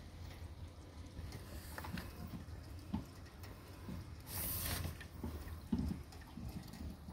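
Faint rain dripping and pattering, scattered irregular taps over a low steady rumble, with a short hiss about four and a half seconds in.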